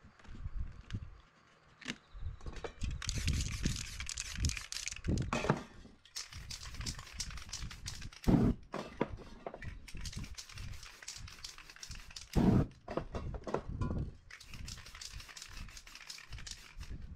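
Aerosol spray paint cans hissing in bursts onto a canvas, mixed with clicks and rattles of the cans being handled, and two loud knocks about eight and twelve seconds in.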